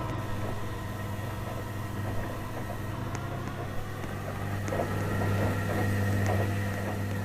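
Washing machine running: a steady motor hum with a whine that rises in pitch about four seconds in as the drum speeds up and the sound gets a little louder, with faint ticks.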